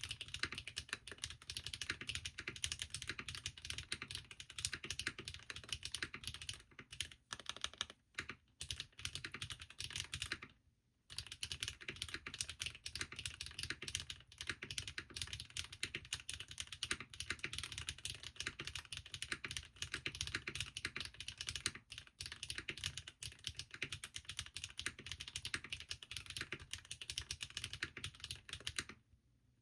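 Mechanical keyboard (Bahm Studio Droplet with Krytox-lubed HMX Catmint switches and lubed Gateron stabilizers) being typed on quickly and continuously, key after key, broken by a few short pauses.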